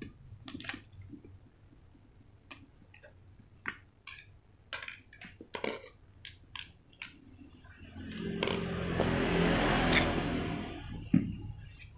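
Scattered light clicks and taps of power tools being handled: an angle grinder's housing and a corded drill picked up and set down. About eight seconds in, a louder rushing noise swells for a couple of seconds and then fades.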